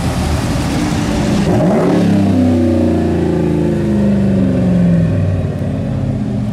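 Lifted Ram pickup's engine revved through its tall vertical exhaust stacks as it pulls away. A rising rev comes about a second and a half in, followed by a loud, deep exhaust note held for about three seconds that sinks slightly in pitch before easing off.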